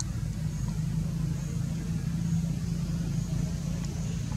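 A steady low engine hum, like a motor idling, held at an even pitch throughout.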